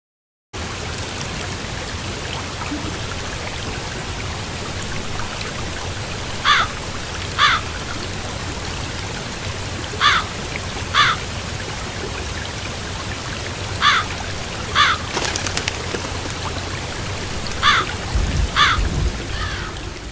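Steady rushing-water ambience, with a pair of short chirps that comes back four times, about every three and a half seconds.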